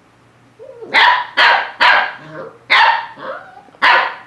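A dog barking: about five sharp, loud barks in quick succession, starting about a second in.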